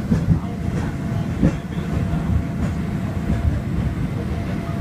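Hong Kong Peak Tram car climbing its track, heard from inside the car: a steady low rumble of the car on its rails, with a few sharp knocks and a faint steady hum.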